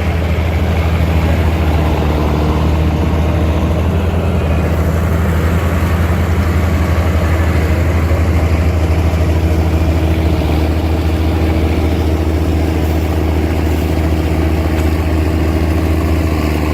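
Heavy equipment engine running steadily at a constant speed, with a deep, even hum that stays loud throughout.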